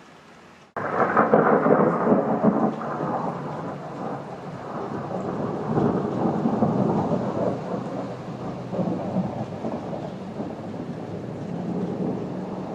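Thunder rumbling, starting suddenly about a second in and rolling on while slowly easing off, over falling rain.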